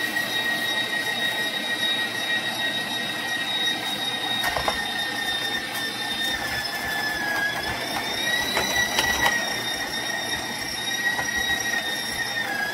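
Stand mixer running at full speed with a flour-milling attachment, a steady high whine, as dry mesquite pods fed into the hopper are crushed with crackling and crunching. The whine sags briefly under load twice, about seven seconds in and near the end.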